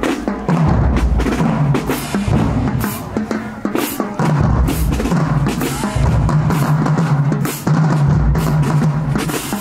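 Marching band playing as it marches: a pounding drum cadence of snare and bass drums with sharp, fast strikes, over low sustained notes that come and go every second or two.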